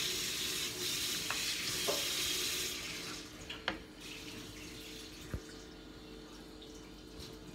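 Kitchen tap running into a stainless steel sink while hands are washed under the stream. A little past halfway the flow is turned down to a thin stream and the sound drops to a quieter trickle, with a few light knocks of hands and tap.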